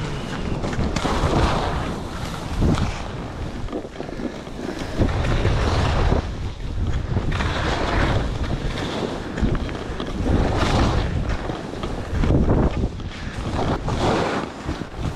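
Wind rushing over the GoPro's microphone while skiing downhill through snow, with the hiss of the skis swelling and fading every second or two.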